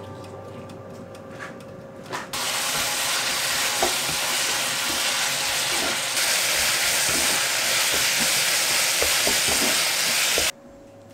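Mushrooms and green peppers sizzling in a frying pan while being stir-fried, a wooden spatula knocking and scraping through them. The loud sizzle comes in suddenly about two seconds in and cuts off abruptly near the end.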